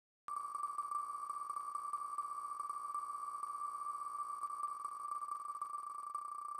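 Online spinning-wheel name picker's tick sound, the ticks coming so fast as the wheel spins that they merge into a steady high buzz. It starts suddenly about a quarter second in.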